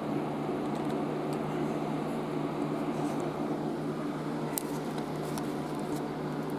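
Steady low hum and room noise, with a few faint clicks about four and a half seconds in.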